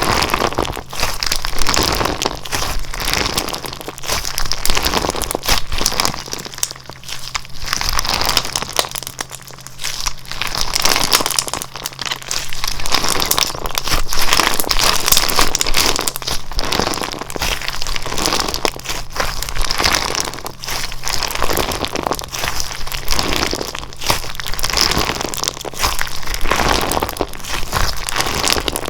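Slime being squeezed and pressed by hand, a continuous run of small crackling pops and squishes that thins out briefly about eight seconds in.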